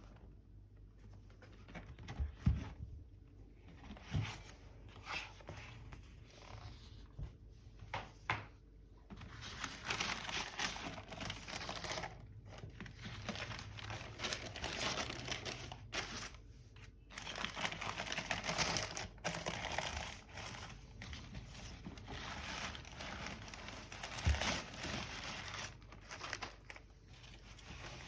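Wrapping being crinkled and rustled as a pair of sneakers is unpacked, with a few dull knocks in the first part and denser crinkling after about ten seconds.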